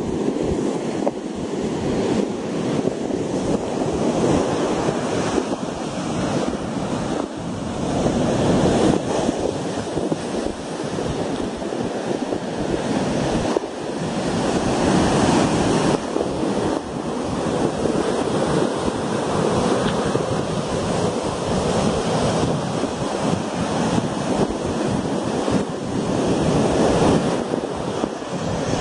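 Heavy storm surf breaking and washing ashore, swelling louder every few seconds, with wind buffeting the microphone.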